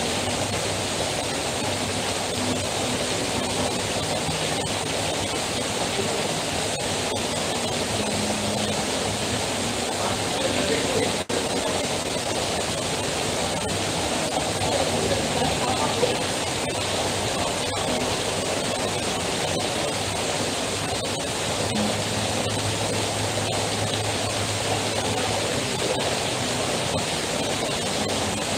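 Heavy rain falling steadily, with water streaming off the edge of a roof canopy. It drops out for an instant about eleven seconds in.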